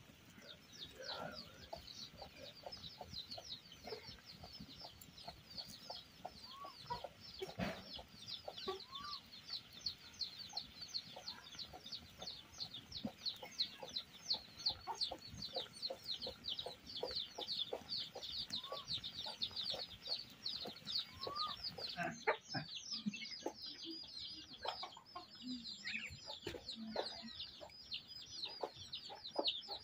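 Chicks peeping, several short high falling chirps a second, with a few soft clucks from a hen among them.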